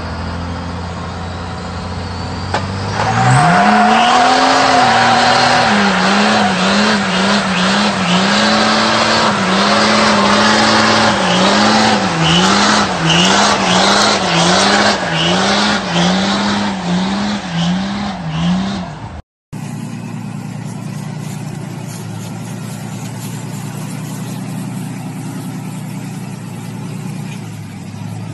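Dodge Ram diesel pickup doing a burnout. The engine idles, then revs up sharply about three seconds in and holds high, its pitch dipping and rising over and over, under the screech of spinning rear tires. After an abrupt cut near the end comes a quieter, steady engine sound.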